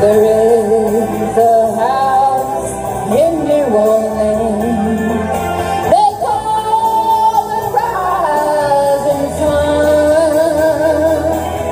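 Woman singing karaoke into a microphone over a backing track, holding long notes; her voice squeaks on a high note.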